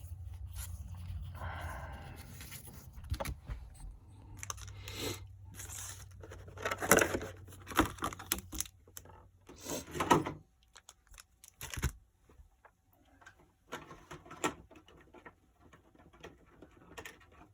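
Pokémon trading cards being handled and flipped through: scattered rustles, clicks and sliding sounds at an uneven pace. A low steady hum runs underneath and stops about ten seconds in.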